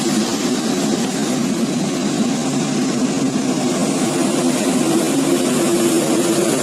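Jet engines of a four-engine Boeing 747 running, a loud steady hum that holds constant throughout.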